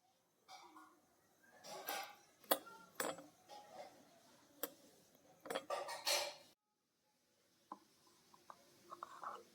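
Kitchen utensils clinking and knocking in short irregular bursts, with a few sharp clicks. The sound cuts off abruptly about six and a half seconds in, followed by a few faint taps.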